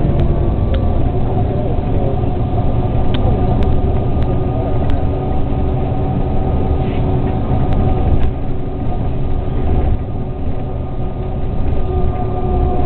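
City bus driving, heard from inside the passenger cabin: a steady low engine and road rumble with a faint steady whine, and a few brief rattling clicks.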